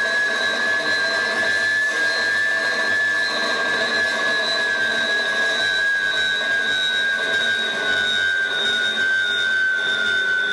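Live electronic sound improvisation: a sustained high tone with a fainter, higher one above it slowly sinks in pitch over a dense, hissing bed of other steady tones.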